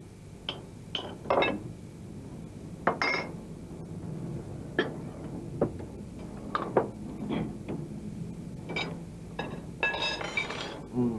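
Irregular light clinks and knocks of small hard objects, a dozen or more scattered through, some ringing briefly, with a busier cluster near the end.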